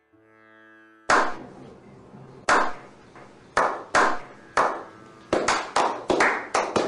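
A small group's slow clap. Single hand claps start about a second in, spaced about a second apart, then speed up into quicker clapping, several a second, near the end.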